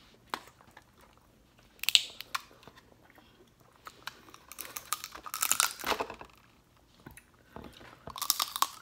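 Shellfish from a seafood boil being cracked and peeled by hand, with chewing: scattered clicks and three louder crackling bursts of shell breaking.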